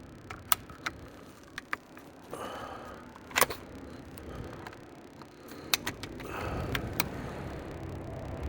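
Scattered sharp clicks and light rattles of car seat and seat belt buckle parts being handled, with a faint rustle between them.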